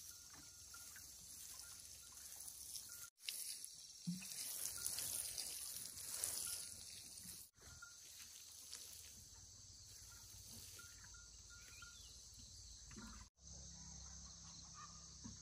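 Water from a plastic watering can's rose sprinkling onto loose, freshly dug soil. The sprinkling is loudest for a few seconds just after an abrupt cut about three seconds in, over a steady high insect drone.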